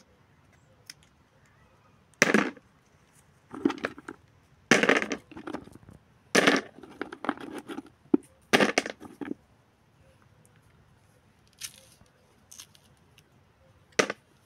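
Green almond hulls being split and peeled off the shells by hand, in about ten short rough tearing and crackling bursts with pauses between them.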